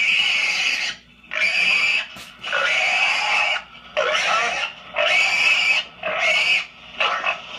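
Caught wild hog squealing, about seven loud, high-pitched squeals in a row, each lasting up to a second, with short breaks between them as the animal is held down.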